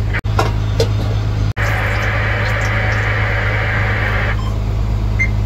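Fishing boat's engine humming steadily, with a few short clicks in the first second. From about a second and a half in until just past four seconds comes a steady hiss of cooking oil being poured into a metal pan.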